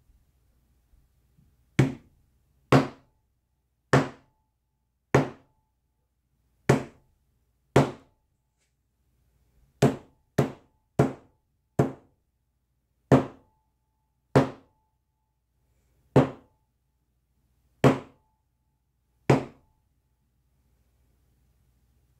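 Tack hammer striking a paint-covered hard panel: about fifteen sharp knocks, mostly a second or so apart, with a quicker run of four near the middle.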